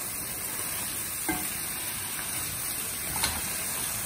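Grated cabbage sizzling in a hot pot as it is stirred and sautéed with a plastic spoon. Two light knocks of the spoon against the pot, about a second in and again about three seconds in.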